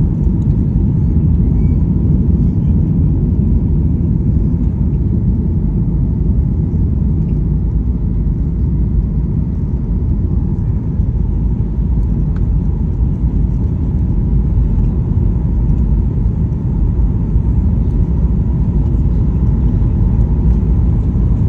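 Steady low rumble of an airliner's engines and airflow heard inside the passenger cabin, with a faint steady hum above it.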